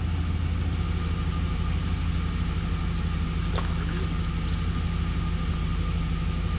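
Engine running steadily with an even, low drone.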